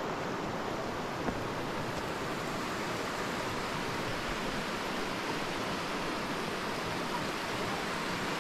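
Small glacial meltwater stream rushing steadily over stones.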